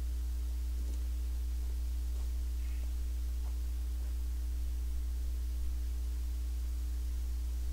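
Steady low electrical hum in the recording, with a fainter steady higher tone above it and only a few faint ticks besides.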